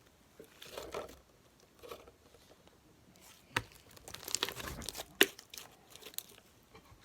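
Foamy slime being squished and pulled apart by hand, crackling and tearing in uneven bursts, with a couple of sharp clicks about three and a half and five seconds in.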